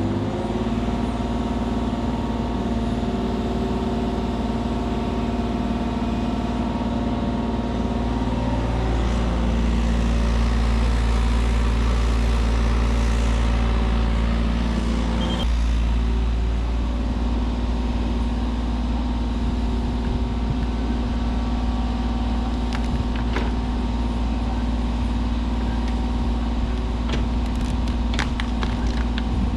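Diesel engine of compact digging equipment running steadily at work, with a few short knocks near the end.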